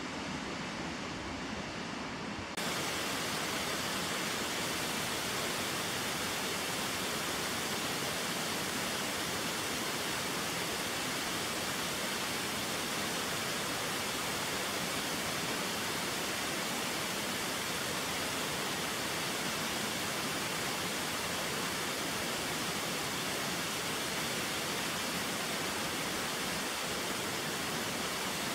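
Steady rush of a fast mountain river. About two and a half seconds in it cuts to a louder, hissier rush of a stream cascading over rocks down a slope.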